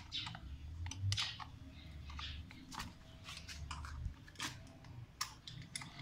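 Irregular small metallic clicks and ticks from a hex key turning bolts and knocking against a motorcycle footpeg bracket as it is fitted, over a faint low rumble.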